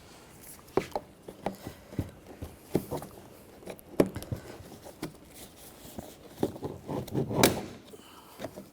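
Plastic trim tools prying at a 2013 Ford Escape's interior door switch plate: scattered clicks and knocks of plastic against plastic as the clips are worked loose, with a louder crack near the end.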